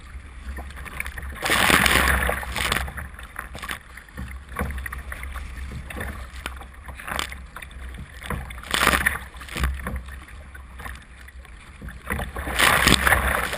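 Kayak paddle strokes and choppy waves slapping and splashing over the bow, rising to a handful of loud splashes, over a steady low rumble of strong wind on the microphone.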